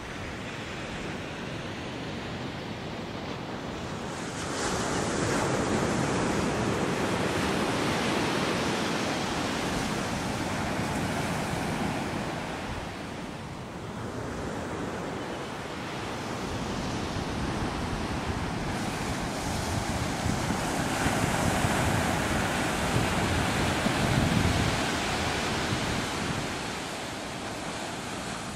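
Ocean surf washing onto a sandy beach, swelling and easing over several seconds, with wind on the microphone.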